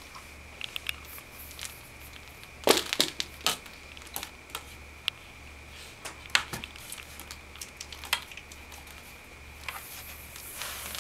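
Handling sounds of a CPAP hose being pushed onto its plastic connector: scattered clicks, knocks and rustling. The loudest cluster comes about three seconds in, with single knocks later on and a rustle near the end.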